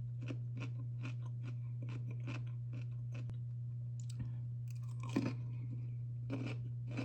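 Crisp dill pickle being bitten and chewed with wet crunches close to the microphone, about three a second at first, then a pause and more chewing in clusters later. A steady low hum sits underneath.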